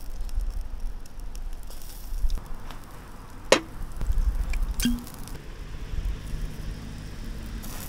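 A few sharp clicks and knocks over a steady low rumble; the loudest comes about three and a half seconds in, and a last one, about five seconds in, rings briefly.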